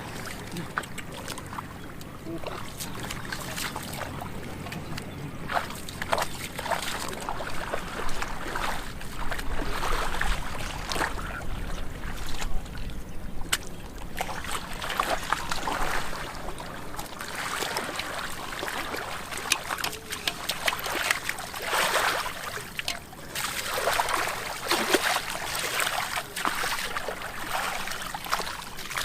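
Hands sloshing and splashing through shallow muddy water while groping for fish, in a run of irregular wet swishes and trickles.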